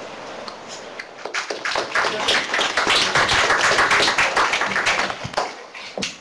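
A small audience clapping: applause starts about a second in, builds to a steady patter of many hands, and dies away shortly before the end.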